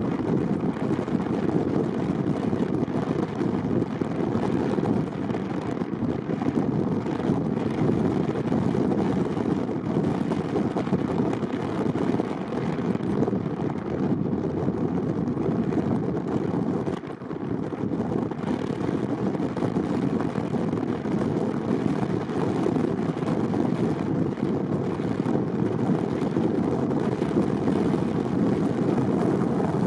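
Steady low road noise of a car driving: tyres and engine as one even rumble, easing briefly about halfway through.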